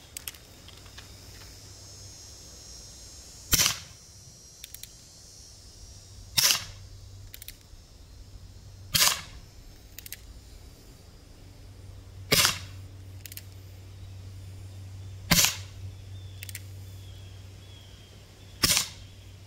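Six shots from an Umarex Colt Peacemaker CO2 pellet revolver: sharp pops about three seconds apart, each followed about a second later by a fainter click.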